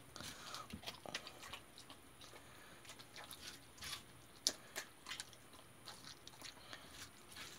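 Jindo dog chewing and biting into watermelon rind: faint, scattered wet crunches and clicks, the sharpest about four and a half seconds in.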